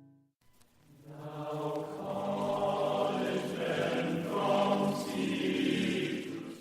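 Music: after about a second of silence, a sustained choir-like chord swells in and holds, fading just before the end.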